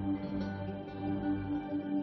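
Ambient background music: soft sustained tones over a gently pulsing low note.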